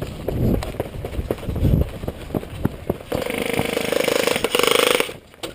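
Irregular thumps and rustling of movement, then an airsoft electric gun firing two sustained full-auto bursts, a rapid steady buzz from about three seconds in, pausing briefly and cutting off sharply near the end.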